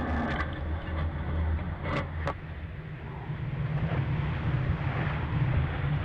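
Low, steady rumble of a fishing boat's engine mixed with wind buffeting the microphone, getting louder in the second half. Two short, sharp knocks come about two seconds in.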